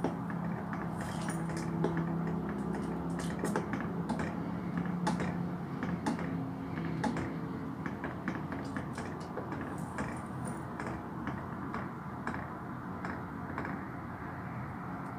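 A ladle stirring agar-agar mixture in a stainless steel pot, scraping and clinking against the pot's sides in irregular small clicks, over a steady low hiss.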